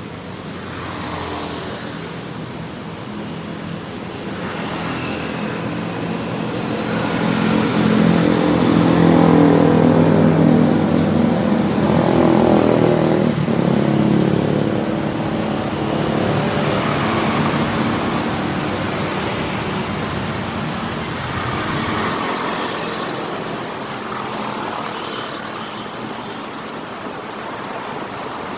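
City street traffic passing steadily. One vehicle's engine swells as it passes close, loudest about ten seconds in, then fades into the general traffic.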